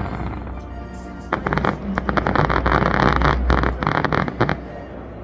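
Aerial fireworks bursting and crackling: a sudden onset about a second in, then about three seconds of dense rapid pops that stop near the end, with music playing underneath.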